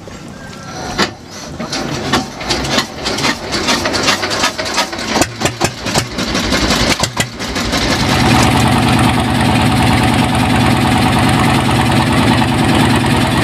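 Small wooden boat's inboard engine being started: several seconds of irregular knocks and clatter, then it catches about eight seconds in and runs steadily.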